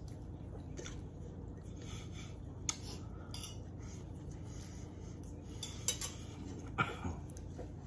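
Cutlery clinking against plates while people eat: a handful of short, sharp clinks scattered through, the loudest near the end, over a steady low hum.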